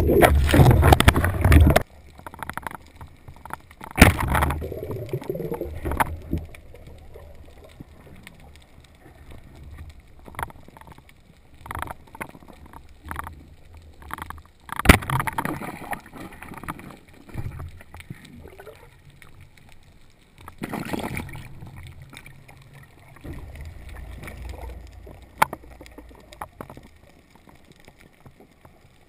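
Muffled underwater water noise heard through a camera housing, rushing and bubbling in irregular bursts, loudest in the first two seconds and again briefly around four and twenty-one seconds in. A single sharp click comes about fifteen seconds in.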